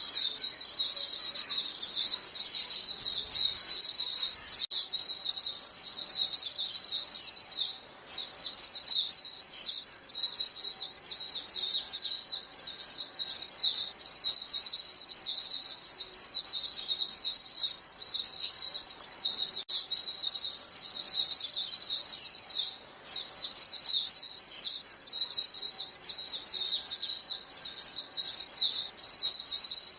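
A flock of white-eyes calling to one another in a dense, unbroken stream of high, rapid chirps. The calling breaks off briefly twice, about a third of the way in and again past the middle.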